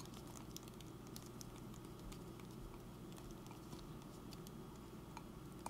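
Faint, scattered light clicks and taps over a low steady hum.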